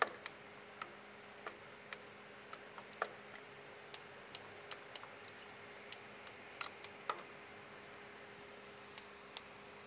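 Faint, irregular metallic clicks from a socket ratchet and extension being worked on the oil pan bolts, tightening them by hand, over a faint steady hum.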